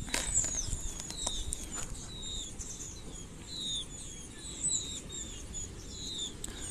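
Small birds chirping in the background: short, high chirps that dip slightly in pitch, about two a second, over a low steady room hum.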